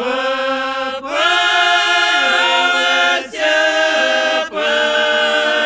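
Mixed men's and women's folk ensemble singing a Russian drawn-out song a cappella in harmony, holding long notes with short breaks for breath between them.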